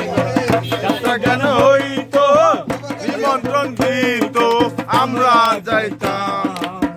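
A man singing a folk song while beating a dhol, a rope-tensioned two-headed barrel drum, with regular drum strokes under the wavering sung line.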